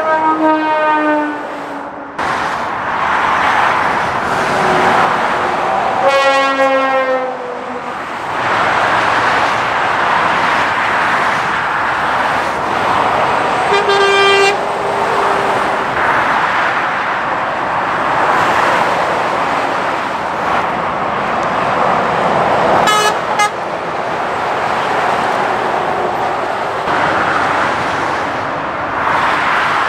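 Lorries and other traffic passing at motorway speed with a steady rush of tyre and engine noise. Horns sound four times: two longer blasts near the start fall in pitch as the vehicles go by, a steadier toot comes around the middle, and a short double toot comes later.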